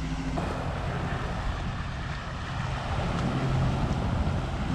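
Ferry engine droning steadily as the boat approaches, a low hum under a haze of wash and water noise.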